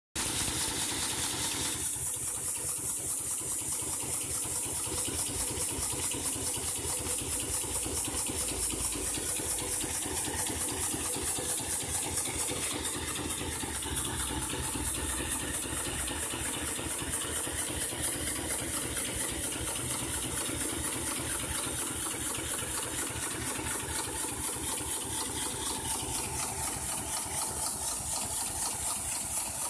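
Miniature live-steam locomotive running under steam, its exhaust beating in a fast, even rhythm of several chuffs a second over a steady hiss of steam.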